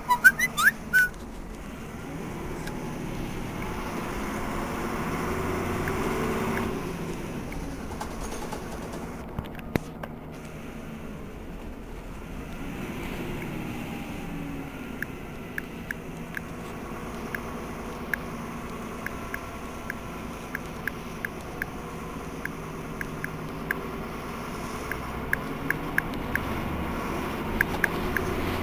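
Diesel engine of a 1978 Berliet PR100 MI city bus running. It swells for the first six or seven seconds, drops back, then holds fairly steady. A few short high squeaks come in the first second, and light clicks tick irregularly through the second half.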